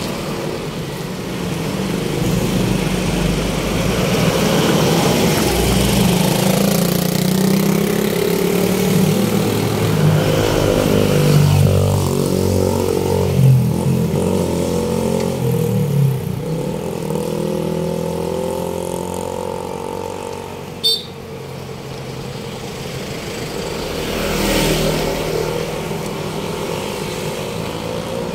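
Motor vehicle engine running in city traffic, its pitch rising and falling as it speeds up and slows, over steady road noise. A single sharp click about three-quarters of the way through.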